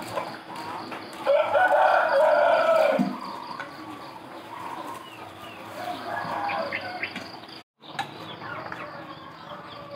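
A rooster crows once, a long call about a second in and the loudest sound here. Chickens cluck and call more faintly through the rest.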